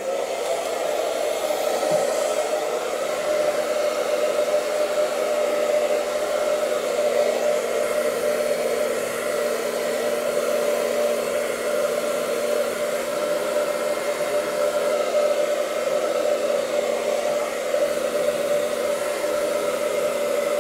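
Hand-held hair dryer running steadily, an even rush of air over a steady motor hum, drying a freshly washed, wet beard.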